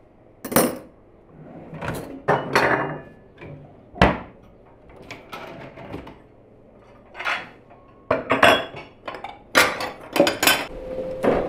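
Steel cutlery clinking in a drawer, then ceramic plates knocking together as they are lifted from a stack in a cabinet: a string of sharp clinks and clatters, busiest in the second half.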